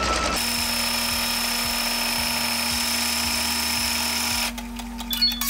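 Computerized embroidery machine's hoop carriage motors whirring steadily as they move the hoop into position for the next stitch-out, stopping about four and a half seconds in. A few clicks and short high beeps follow near the end.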